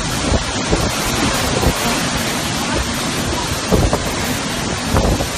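Storm wind and rain: a steady rush of noise, with gusts buffeting the microphone in several low thumps.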